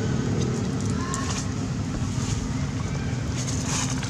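A steady low hum of a running motor.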